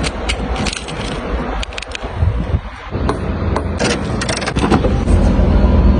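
Mercedes-Maybach GLS 600 sounds: a steady low rumble with many sharp clicks and scrapes over it.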